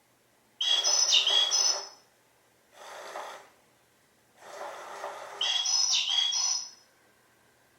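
Motion-sensor electronic cat toy playing recorded bird chirps, in two bursts of a second and a half or more, with a shorter, quieter burst of noise between them.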